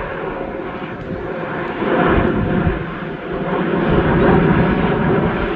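Airliner engines rumbling loudly as an aircraft moves on or near the runway, a rough, unsteady roar that swells about two seconds in and again around four seconds.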